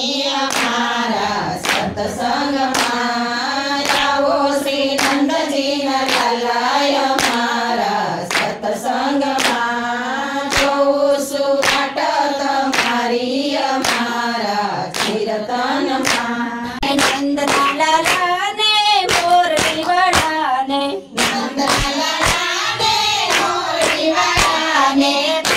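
A group of women singing a Gujarati Krishna bhajan together, keeping time with a steady beat of hand claps.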